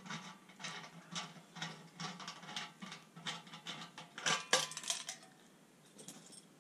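Stainless steel tri-clamp and valve fittings being unfastened and lifted off a conical fermenter's outlet: a run of light metallic clicks and clinks, loudest about four and a half seconds in, dying away after about five seconds.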